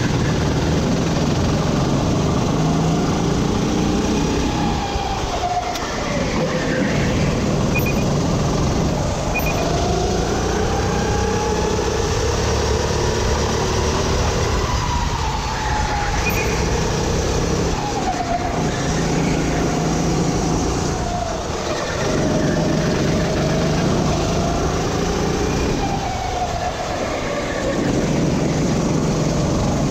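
Sodi RT8 kart's engine heard onboard at racing speed, its pitch climbing along each straight and dropping back into each corner, over and over.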